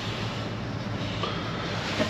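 A steady low hum over an even hiss, with no distinct strikes or tool sounds standing out.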